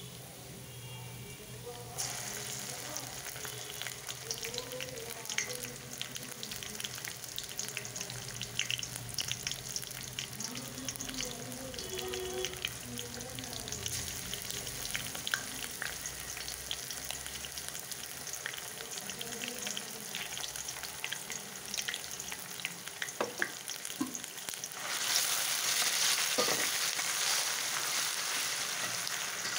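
Sliced onions crackling as they fry in hot oil in a wok. About 25 seconds in, the sizzle gets louder and fuller as a spatula stirs the spice paste through the onions.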